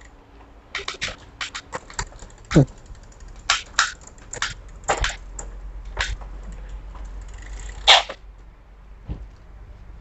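Irregular sharp clicks and knocks from a bicycle's Shimano Tourney rear derailleur and chain being worked by hand, with one louder click a little before the end.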